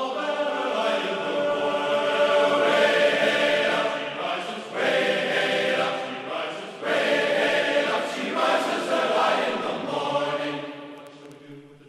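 Background music: a choir of voices chanting long held chords that shift every second or two, fading down near the end.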